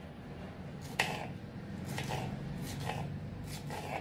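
Kitchen knife dicing cucumber on a wooden cutting board: a few separate chops about a second apart, the blade knocking through onto the board.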